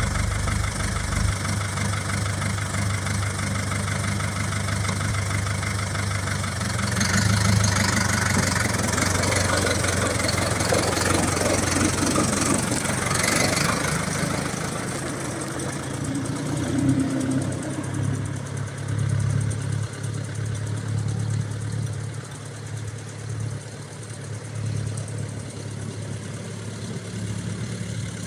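New Holland TL70 tractor's diesel engine running, from idle as the tractor starts to drive away. The sound is louder for several seconds in the middle and grows fainter towards the end.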